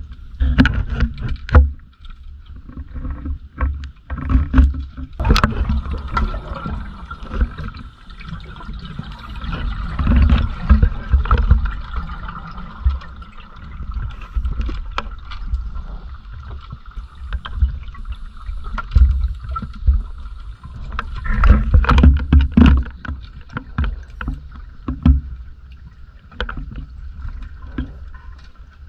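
Muffled underwater noise heard through a diving camera's housing: uneven low rumbling and thumps with scattered sharp clicks, over a faint steady high whine.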